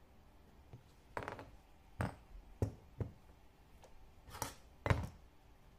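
A nylon mallet striking a pricking iron, driving its prongs through leather to punch stitching holes: six uneven, sharp knocks over about four seconds, the last one the loudest.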